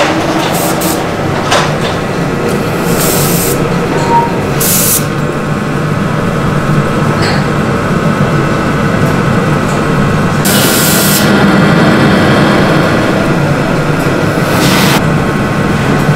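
Steady drone of ceramics-factory machinery with several short bursts of hiss, the longest about ten seconds in.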